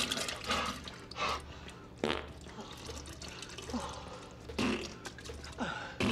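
Sporadic short splashes and drips of liquid, coming about a second or two apart.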